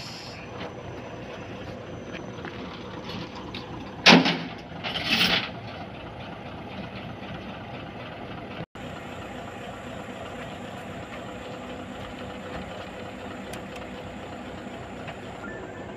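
Steady vehicle engine and road noise, with two short loud noises about four and five seconds in.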